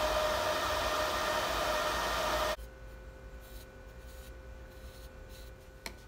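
Steady fan-like hiss with a faint steady whine from a bench DC power supply running under a load of about 120 W, cutting off suddenly about two and a half seconds in. A single small click near the end.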